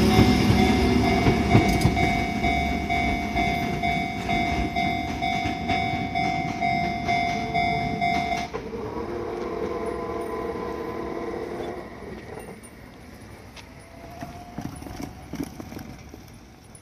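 Hakone Tozan Railway electric train running away from a level crossing, its wheels and motors rumbling and fading as it pulls off, while the crossing's electronic warning bell rings steadily. About eight seconds in, the bell switches to a lower warning tone, which stops a few seconds later as the train sound dies away.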